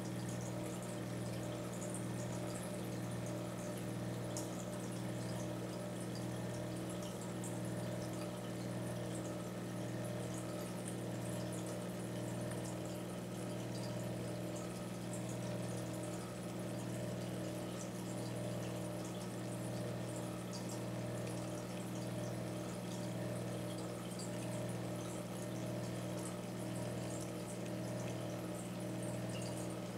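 Aquarium pump running with a steady hum, under a constant trickle of water with small drips and splashes.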